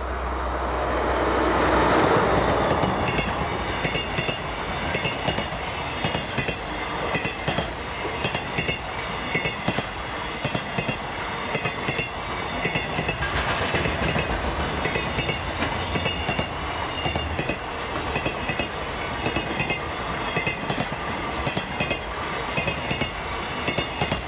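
Diesel-hauled container freight train passing close by. The locomotive's engine is loudest in the first few seconds as it goes past, then the wheels of the container wagons clack steadily over the rail joints as the train rolls by.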